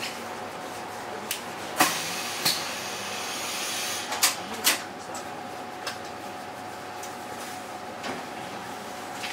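Stuttgart Stadtbahn light-rail train pulling into a station platform. A few sharp clacks, which are likely the wheels running over rail joints, come over a rush of running noise that dies down as the train comes to a stop about five seconds in. A faint steady hum sits underneath.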